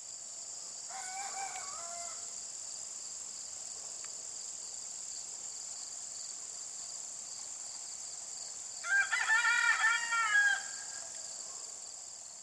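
Rooster crowing twice, a fainter crow about a second in and a louder, longer one near the end, over a steady high-pitched drone of insects such as crickets.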